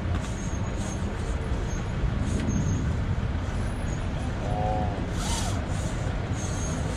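Steady road-traffic rumble, mainly from a large coach bus running alongside an open-sided electric shuttle, with a brief hiss about five seconds in.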